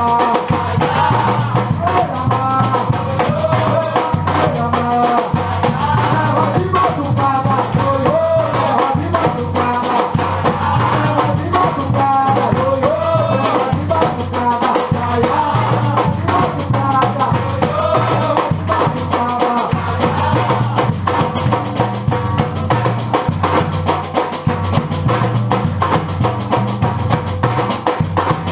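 Batucada percussion ensemble playing a dense, driving rhythm without a break, with deep bass-drum beats underneath and a melody above it.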